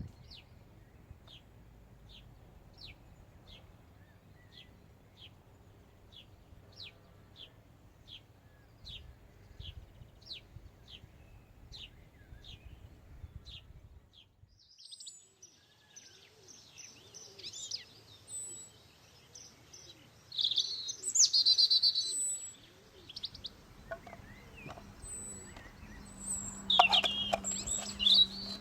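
Birds singing and calling: one bird repeats a short, thin, high falling note about once a second for the first half, then after a brief drop in level a mix of other bird calls follows, loudest about two-thirds of the way through and again near the end.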